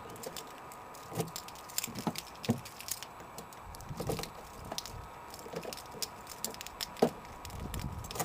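Lock pick and tension wrench being jiggled in a 2000 Renault Scenic's door lock: irregular small metallic clicks and scrapes, with a louder click about seven seconds in.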